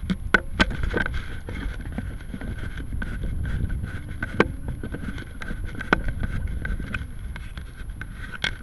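Wind rumbling on the microphone of a model rocket's onboard camera, with a faint steady high tone and scattered sharp clicks, several of them in the first second.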